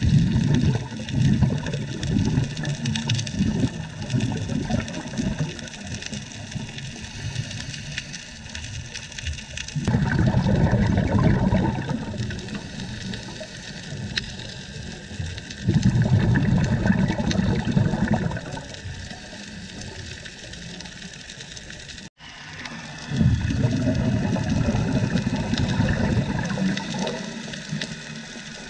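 Scuba diver breathing through a regulator underwater: the exhaled bubbles make deep rumbles lasting two to three seconds, repeating about every five or six seconds over a steady hiss.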